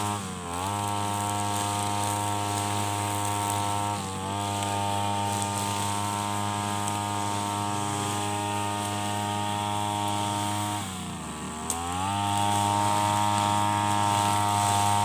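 Backpack petrol brush cutter engine running at high speed. Its pitch drops and climbs back three times as the throttle is eased: just at the start, briefly about four seconds in, and for about a second near eleven seconds in, after which it runs a little louder.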